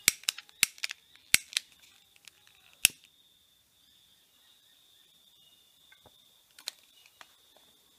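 Long-nosed utility lighter's igniter clicking: about seven sharp clicks in quick irregular succession over the first three seconds, then a pause and two more clicks near the end.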